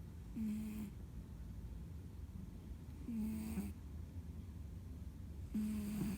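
A house cat snoring in its sleep: three short buzzing snores about two and a half seconds apart, each with a breathy hiss, as loud as a person's snoring.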